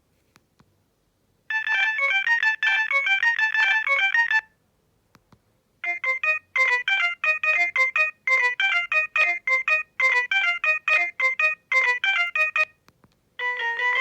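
Alcatel OT-E158 mobile phone playing its built-in ringtones: after a short silence, a quick melody of short, bright notes, then a pause of about a second and a half, then a different melody played in short repeated phrases.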